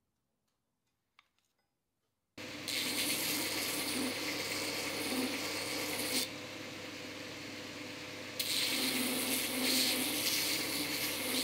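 Near silence for about two seconds, then a belt grinder grinding a steel billet: a harsh, steady grinding hiss over the motor's hum in two long passes, with only the motor running in the gap between them.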